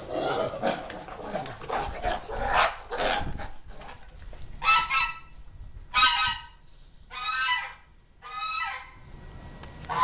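Domestic goose honking: four harsh, loud honks about a second apart in the second half, the first a quick double. They follow a few seconds of rough, pulsing scuffling noise.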